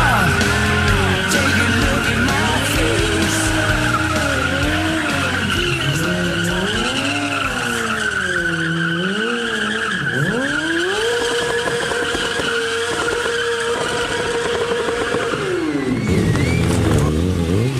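Kawasaki sportbike engine revving up and down during a burnout, with the rear tyre squealing as it spins on the paving. About eleven seconds in the revs are held steady and high for several seconds, then drop away near the end.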